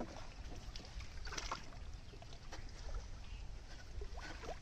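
Small splashes and drips of water as hands and a bundle of bamboo sticks are worked through shallow, weedy water: a few separate splashes over a low steady rumble.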